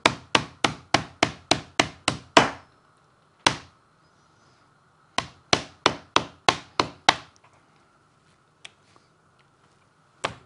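Meat mallet (tenderizer) pounding pieces of raw beef steak on a plastic cutting board, flattening the thick parts to an even thickness. Quick, even strikes come about three or four a second: one run of strikes, a single strike, a pause of a couple of seconds, a second run, then a quieter gap with a few faint taps, and strikes start again right at the end.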